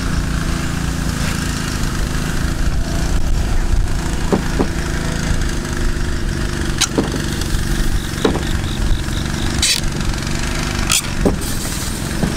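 An engine running steadily with a low hum, with several sharp clicks and knocks over it.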